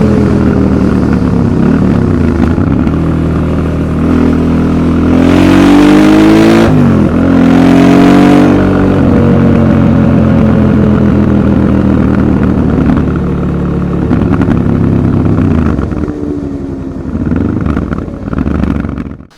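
Honda Transalp 700 motorcycle exhaust running. The engine revs up twice in quick succession, about five and seven seconds in, then drops back and runs steadily before cutting off abruptly near the end.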